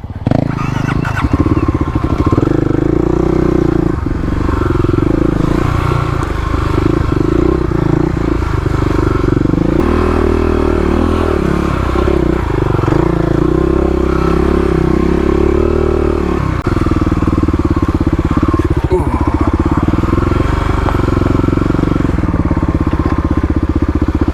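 A modified Kawasaki KLX351 dirt bike's single-cylinder four-stroke engine, fitted with an aftermarket header and muffler, revving up and down as it is ridden along a rough trail.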